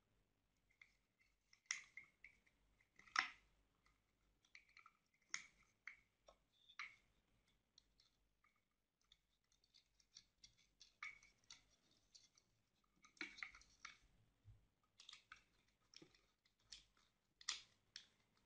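Faint, scattered clicks, taps and scrapes of a white plastic electrical fitting and its cover being handled while insulated wires are pushed into it, the sharpest click about three seconds in.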